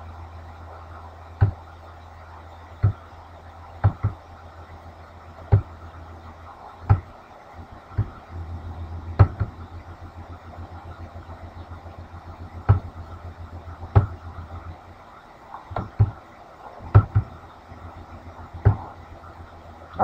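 Computer mouse clicking: about a dozen sharp single clicks at irregular intervals, roughly a second or two apart, over a steady low hum.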